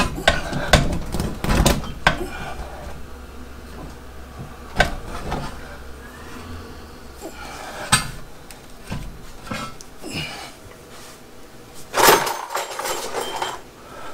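Metal knocks and clunks from a Tremec TKO 600 five-speed transmission's aluminium case bumping against the car's transmission tunnel and brace as it is pushed up by hand, the case catching on the tunnel. The knocks come thick in the first two seconds, then singly about five and eight seconds in.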